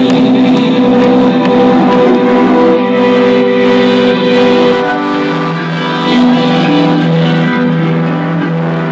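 Loud electronic dance music from a DJ set: held chords ringing steadily, with very little deep bass.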